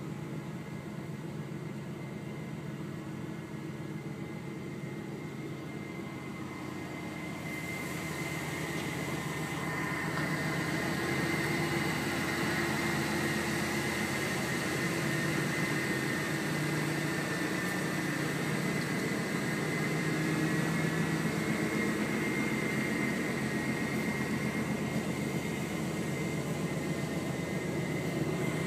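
Steady mechanical hum with a high, even whine over it, getting louder about eight seconds in.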